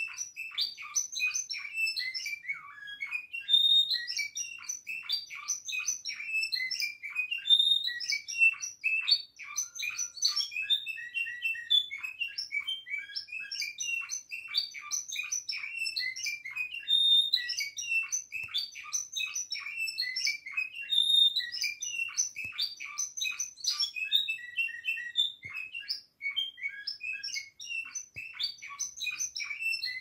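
Spanish singing canary, a song-canary breed, in continuous song: fast trills and rolls of rapid high notes, broken now and then by a short clear whistled tone.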